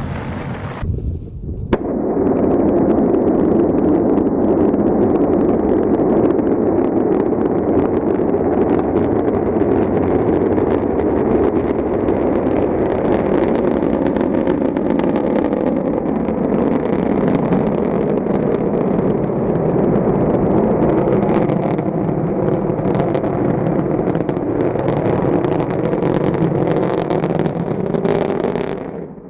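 Rocket engine roar: a loud, steady rumble laced with sharp crackling, starting about two seconds in after a brief break and cutting off suddenly near the end.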